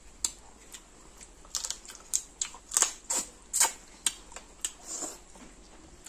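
Close-up eating sounds: irregular wet smacks and clicks of chewing and lips as curry and rice are eaten by hand.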